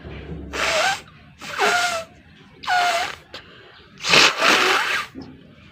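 A person sneezing four times in quick succession, each sneeze a sharp noisy blast with a short falling voiced tone; the last one, about four seconds in, is the longest.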